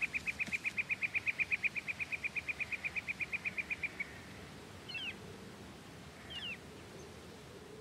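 Forest wildlife: a rapid, even, high-pitched trill of about thirteen pulses a second that stops about four seconds in, followed by two short falling chirps about a second and a half apart.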